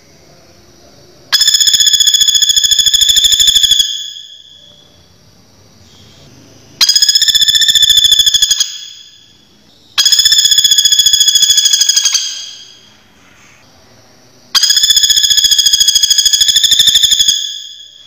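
Common flameback woodpecker (pelatuk bawang) giving its loud, high-pitched rattling trill four times. Each trill is a rapid run of notes lasting two to three seconds that starts abruptly and trails off.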